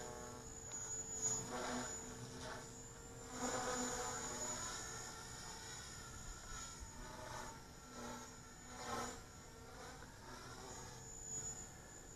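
Oxy 2 Stretch electric RC helicopter in flight at a low 3,700 rpm head speed: a steady whine from its motor and rotor, swelling in loudness several times as it manoeuvres.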